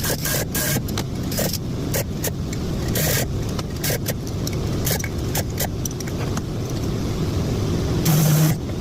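Valve seat grinding stones and tools being handled: repeated metallic clicks and taps over a steady low hum, with a short louder burst about eight seconds in.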